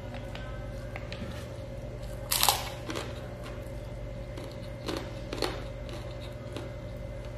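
Close-up eating sounds: a person chewing a mouthful of rice and curry, with one loud crunch about two and a half seconds in and two smaller crunchy noises about halfway through, over a steady low hum.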